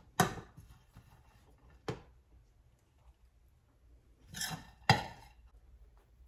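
Metal spoon clinking and scraping against a stainless steel skillet while scooping cooked ground turkey out of it. There are a few sharp clinks, the loudest near the start and about five seconds in, with a short scrape just before the last one.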